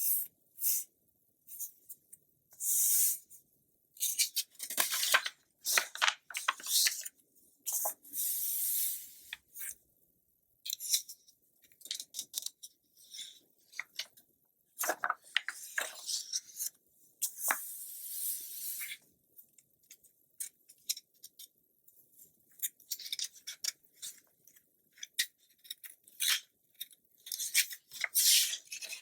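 Magazine pages being turned and handled: irregular crisp paper rustles and crackles, some turns lasting a second or two, with brief pauses between them.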